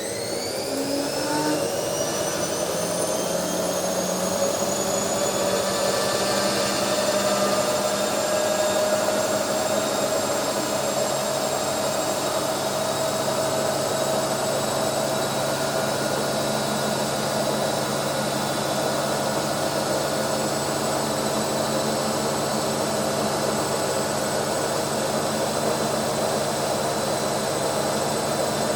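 Household automatic washing machine in its drain cycle. A motor whine rises in pitch as it starts up and levels off after several seconds, then runs steadily over a whirring hum.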